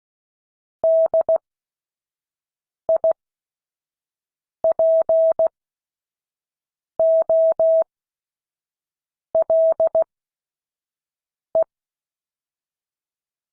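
Morse code sent as a steady single-pitch beep, keyed into dots and dashes. The dots and dashes come in six short character groups with long silent gaps between them, at a slow practice pace.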